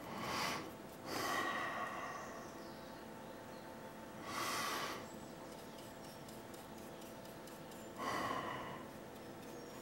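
A person breathing close to the microphone: four slow, soft breaths, each a hiss of half a second to a second, a few seconds apart, over a faint steady hum.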